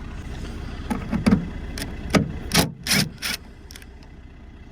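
Hand tools and trim parts being handled while working on a van's boot lock: about seven clicks and knocks in quick succession over two and a half seconds.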